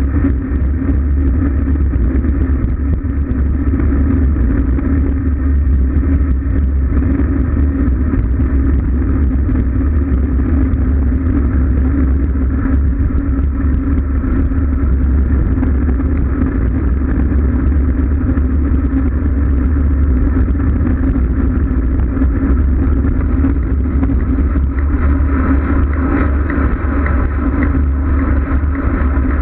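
Loud, steady wind rush buffeting the microphone of a bike-mounted GoPro on a road bike descending at speed, a heavy low rumble with road noise underneath.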